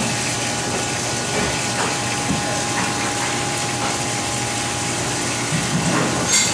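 Steady whir and hiss of kitchen machinery with a constant hum, under a few faint knocks of a knife working through a large tuna carcass and a sharp click near the end.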